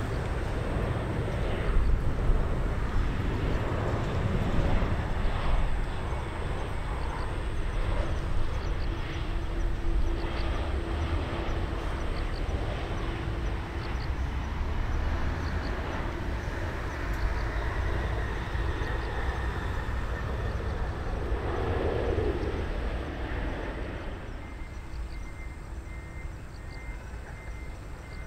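Jet engine noise from a Japan Airlines Boeing 737 on final approach and landing, a steady rushing noise that swells and eases a few times and fades over the last few seconds. A row of short, high beeps comes in near the end.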